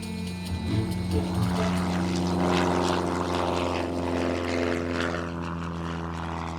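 A light four-seater propeller plane's engine running steadily.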